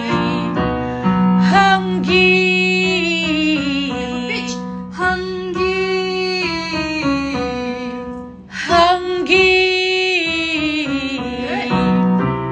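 A woman singing long held notes with vibrato over a keyboard accompaniment.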